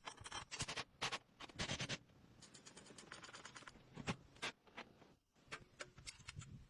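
Hand work on the bulldozer: a string of irregular short clicks, taps and scrapes of tools and parts being handled.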